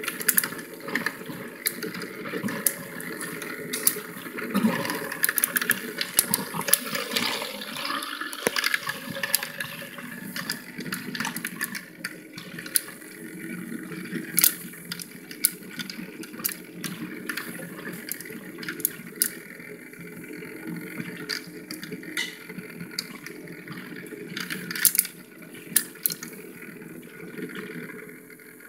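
Water swirling and churning in a motorized whirlpool 'tornado' toy, a steady rushing sound with many sharp clicks scattered through it.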